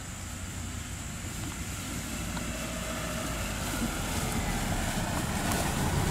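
Chrysler PT Cruiser's four-cylinder engine running as the car drives across a grassy field on oversized rear truck tyres, getting steadily louder as it comes closer.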